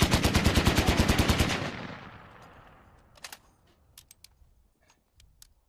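Browning M2 .50 calibre machine gun firing one burst of about a second and a half, shots coming fast and evenly, then echoing away. A few light clicks follow in the second half.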